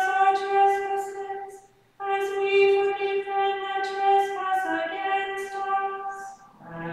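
A woman's voice chanting plainsong unaccompanied, reciting mostly on one held note in long phrases, with a short break about two seconds in and a brief fall in pitch later. Right at the end a lower man's voice comes in.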